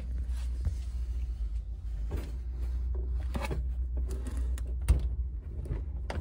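Handling knocks and rustles as a three-prong mains plug is pushed into a wall outlet, with a sharp click about five seconds in as it goes in. A steady low rumble runs underneath.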